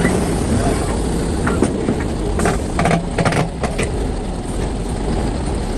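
Heavy excavator diesel engine running steadily, with a quick cluster of knocks and clanks in the middle.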